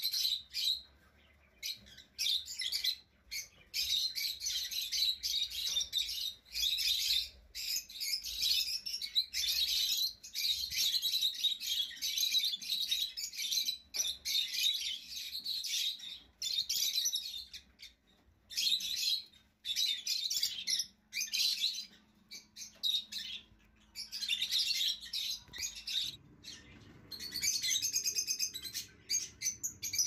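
Lovebirds chirping in rapid, high-pitched chatter, in runs broken by short pauses.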